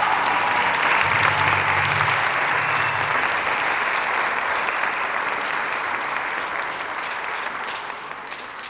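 Audience applauding at the end of a mariachi piece, the clapping fading away in the last second or two.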